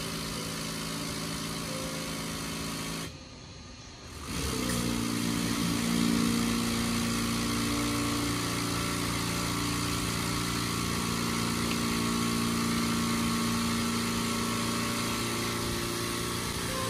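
DJI MG-1P spray drone's pump running during flow calibration, pushing water out through the spray nozzles: a steady motor hum with a hiss of spray. It breaks off briefly about three seconds in and comes back louder about a second later.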